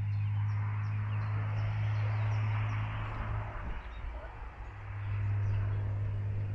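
Birds chirping faintly over a steady low hum and a rushing noise that swells over the first few seconds and then fades. The hum dips briefly near the middle.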